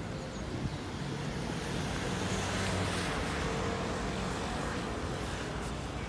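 Street traffic: a motor vehicle passes, its engine hum and tyre noise swelling in the middle and then fading.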